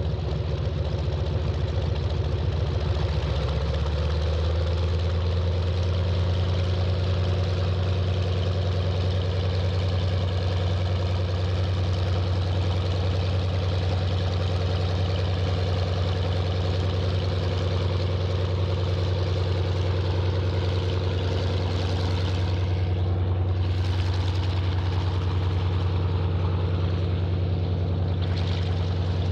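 PZL M-18 Dromader's nine-cylinder ASz-62IR radial engine idling just after start-up. It runs unevenly at first and settles into a steady, low idle about four seconds in.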